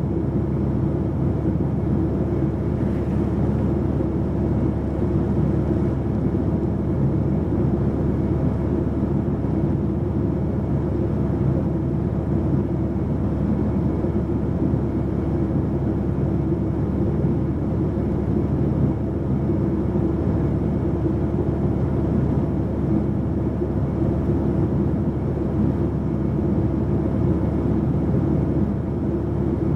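Mitsubishi Fuso PA-MK25FJ diesel city bus heard from inside while under way: steady engine hum and road noise with no marked changes.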